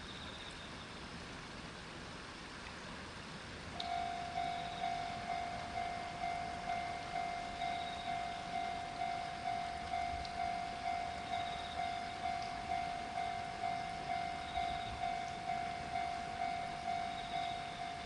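Railway level-crossing warning bell starts about four seconds in and rings evenly at about two strokes a second, signalling that a train is approaching.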